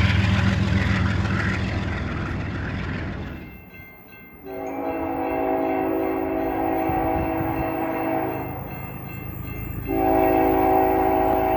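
A BNSF diesel locomotive and its freight cars rumbling past at close range, cut off about three seconds in. Then a train's multi-chime air horn blows one long blast of several steady tones, and a second long blast starts near the end.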